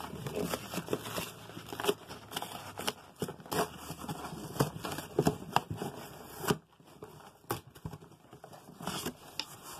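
A cardboard shipping box being torn open by hand: a run of short, sharp ripping and crinkling sounds as the lid and flaps are torn, with a brief lull about two-thirds of the way through.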